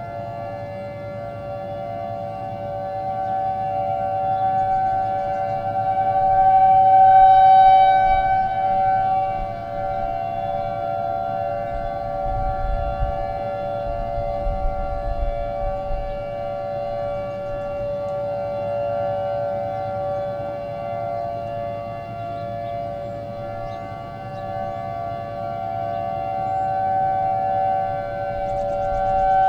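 Outdoor tornado warning siren sounding a steady tone made of a few close pitches, swelling louder about seven seconds in, easing off, then rising again near the end.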